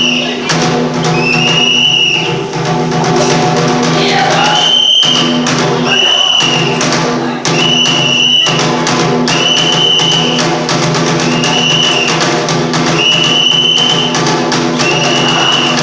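Bitchu kagura accompaniment: drum strikes under steady lower held tones, with a high, slightly arched note recurring about every one and a half to two seconds.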